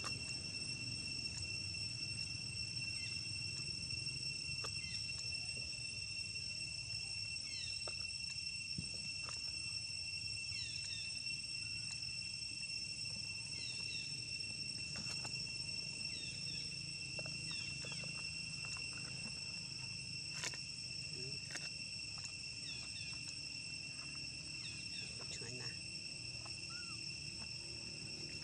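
Steady high-pitched drone of forest insects, two even tones that hold throughout, with scattered short faint chirps and a few light clicks.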